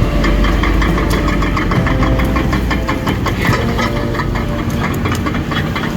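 Excavator's diesel engine running, a heavy low rumble through the first half, with knocks and clanks throughout and a pop song playing over it.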